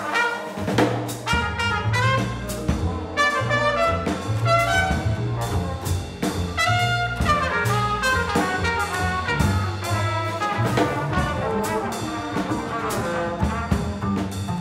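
Small jazz ensemble playing live: trumpet, alto saxophone and trombone in quick, short melodic phrases over a pulsing double bass line and drum kit.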